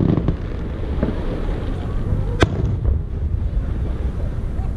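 Aerial fireworks shells bursting, with sharp cracks a few times (the strongest about two and a half seconds in) over a steady low rumble.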